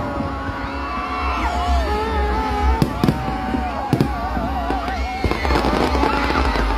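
Aerial fireworks shells bursting, with several sharp bangs about three to four seconds in, over music and crowd voices and a steady low rumble.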